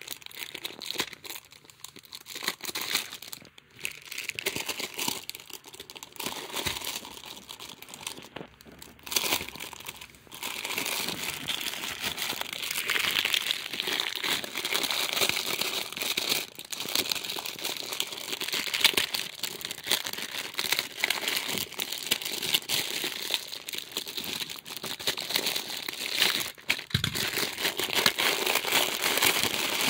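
Clear plastic wrapping crinkling and rustling as it is handled around a packaged model tram, with many small crackles. It is softer at first and gets louder from about ten seconds in.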